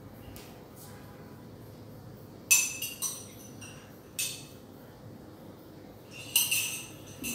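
Several sharp clinks, each with a brief ringing tone. The first, about two and a half seconds in, is the loudest, and a small cluster comes near the end.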